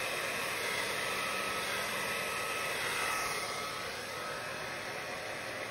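Handheld hair dryer running steadily, blowing air across wet acrylic paint in a Dutch pour. About three seconds in, its pitch shifts and it gets slightly quieter as the dryer is lifted away.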